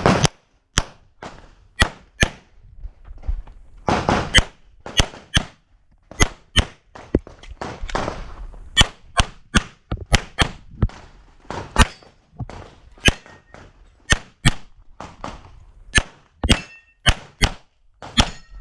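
A handgun fired by an IPSC competitor shooting a stage: some thirty sharp shots, many in quick pairs, with short pauses between strings.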